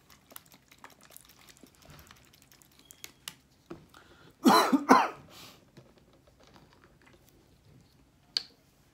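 A man clears his throat with a short cough about halfway through, two or three quick pitched pushes. Faint small clicks of a plastic bottle cap being handled, and one sharp click near the end as the cap is set down on a wooden board.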